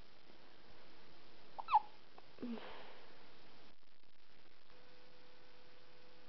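Squeaky hiccups: one sharp, high squeak falling in pitch a little under two seconds in, then a softer, lower hiccup about a second later.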